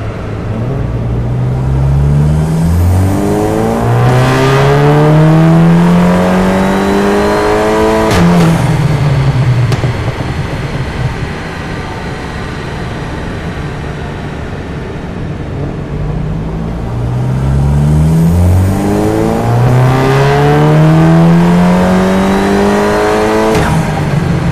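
Volkswagen Golf MK7 GTI's turbocharged 2.0-litre four-cylinder making two full-throttle pulls on a chassis dyno through a valved sport exhaust: the engine note climbs in short steps, then rises long and hard to a peak before dropping back, with a sharp crack as the throttle is lifted. Between the pulls the engine runs lower and steadier.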